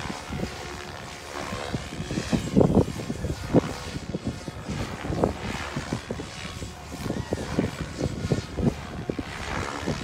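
Electric RC helicopter (SAB Goblin RAW 700) flying at a distance, its rotor and motor whine faintly rising and falling, under heavy wind buffeting on the microphone that comes in gusts, strongest a few seconds in.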